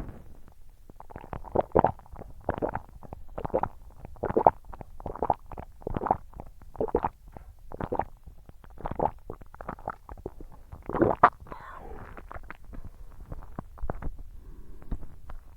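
Close-miked mouth sounds of someone eating, in a steady rhythm of about one a second, the loudest about eleven seconds in.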